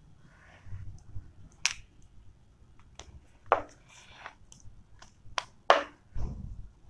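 Whiteboard marker tapping and rubbing on a whiteboard as a word is wiped off and written again: a few short scratchy rubs and about half a dozen sharp clicks.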